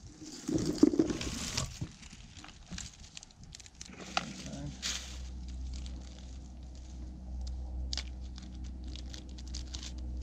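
A plastic geocache container and a zip-lock bag are handled and opened, giving rustling and crinkling of plastic with a few sharp clicks. There is a loud rustle about half a second in. A steady low hum runs underneath from about four seconds in.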